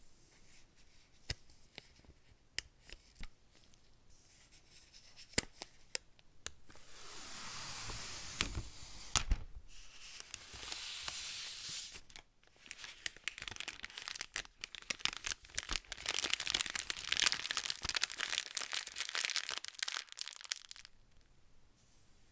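Packaging being torn open and crinkled during an unboxing. A few sharp clicks and taps come first, then longer stretches of tearing and crackling, the longest and loudest near the end.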